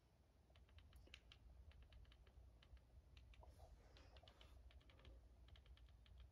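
Near silence, with faint, irregular clicks several times a second over a low hum.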